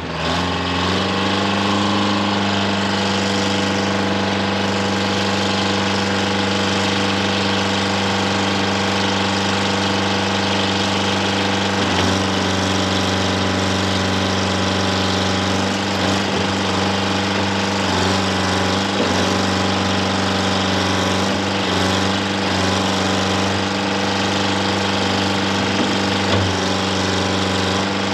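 Detroit Diesel 4-71 two-stroke diesel of a Dynahoe 200-4 backhoe-loader, running loudly and steadily. It picks up speed in the first second, then holds an even speed while the backhoe arm is worked, with small wavers now and then.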